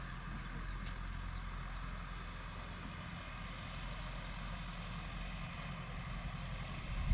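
A steady engine or motor hum that drops out abruptly at the very end.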